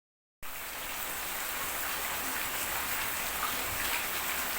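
Steady rain falling, an even hiss that starts about half a second in.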